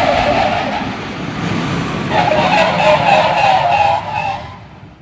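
Recorded sound snippet from the GO-ON amusement ride. About two seconds in, a quick run of short pitched notes starts, then it dies away near the end.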